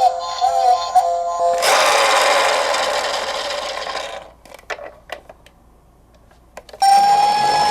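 A burst of noise that fades away over about two seconds, a few light clicks, then a siren tone that starts suddenly near the end and holds steady, as from a toy emergency-vehicle siren.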